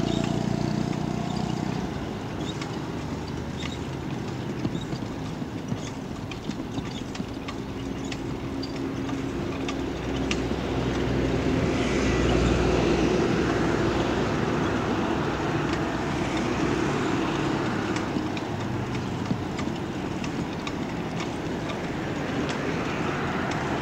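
Street traffic heard while riding along a town road: a steady low rumble with motorcycle and car engines passing, swelling louder about halfway through, and scattered light clicks and rattles.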